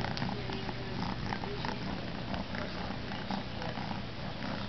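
Young domestic kitten purring close by, over a steady low hum.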